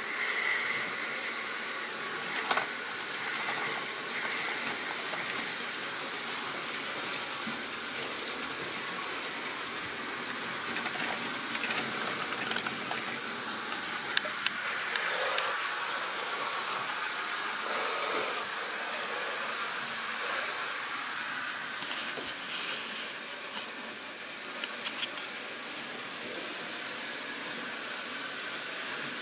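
OO-gauge model railway wagons rolling along the track: a steady rushing hiss of small wheels on the rails, with a few light clicks now and then.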